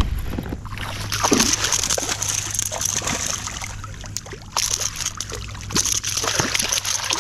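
Water splashing and sloshing at a kayak, with scattered sharp knocks and clicks, as a small largemouth bass is brought to the boat.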